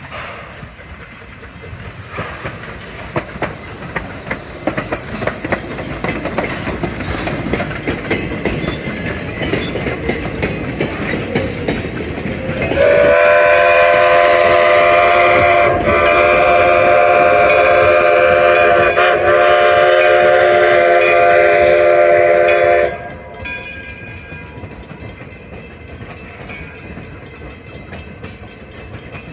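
Steam locomotive 'Edison' approaching and passing with its passenger train, its exhaust chuffing louder as it nears. About 13 s in its steam whistle sounds a chord of several notes, a short blast then a long one of about seven seconds, and cuts off sharply. After that the coaches roll by with a clickety-clack of wheels that fades.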